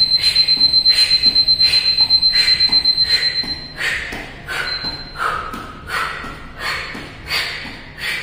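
Electronic timer beeping: a rapid run of high-pitched beeps on one tone for about four seconds, the signal that an exercise interval is over. Quick, rhythmic exhaled breaths continue behind it and after it stops.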